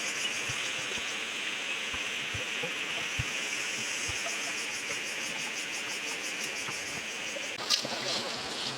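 Insects chirring outdoors, a fast, even, high-pitched pulsing over a steady hiss, with a few faint knocks.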